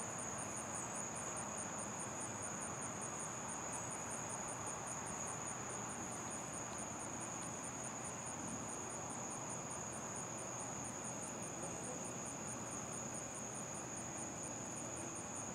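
Chorus of night insects: a steady high trill with an evenly pulsed chirping above it, several pulses a second, over a low steady hiss.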